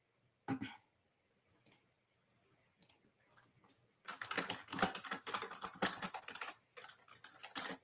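Typing on a computer keyboard: a few separate clicks, then a quick run of keystrokes from about four seconds in.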